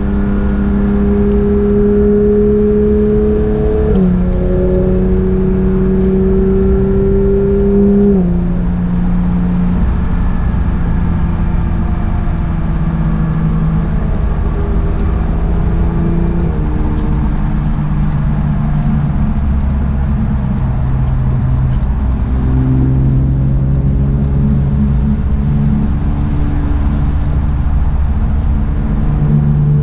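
Porsche 911 GT3 (992) naturally aspirated 4.0-litre flat-six running on track at part throttle, its pitch stepping down and up several times as the PDK gearbox changes gear and the speed varies.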